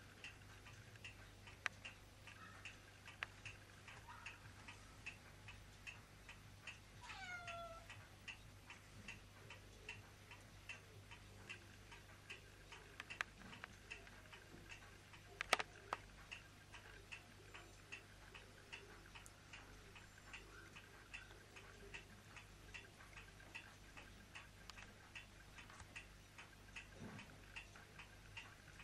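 A clock ticking steadily, about two ticks a second, in a quiet room. A kitten gives one short falling meow about seven seconds in, and a single sharp click sounds about halfway through.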